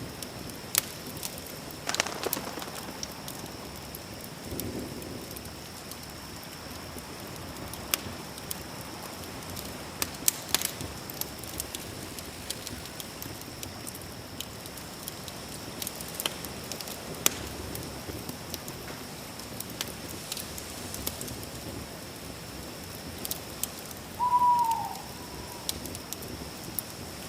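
Campfire crackling: scattered sharp pops and snaps over a soft steady hiss, with a thin steady high tone behind. Near the end, a single short animal call that drops in pitch.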